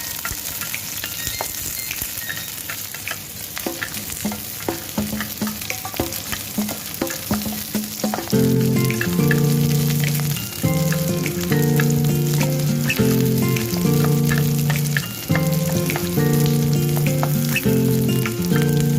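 Food frying and sizzling in a pan, with the sharp clicks and scrapes of a utensil stirring it. Background music with held notes comes in about eight seconds in and carries on over the sizzle.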